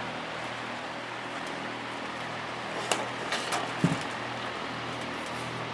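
A plastic box fan being handled and turned around: a few light clicks and knocks about three seconds in, one with a dull thump, over a steady background hiss and low hum.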